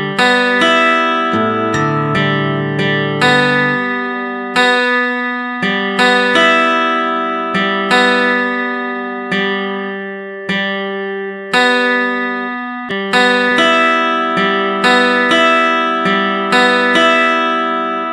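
Background music: notes plucked on an acoustic guitar, one to two a second, each ringing on and fading before the next.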